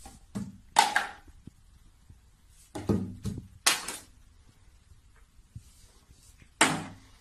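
Plastic toiletry bottles knocked over and clunking on a tiled bathroom shelf as a cat bats them with its paw. A handful of separate short knocks come a second or two apart, the last and loudest near the end.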